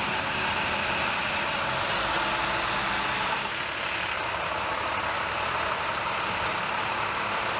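Flatbed truck's engine idling steadily under a constant hiss.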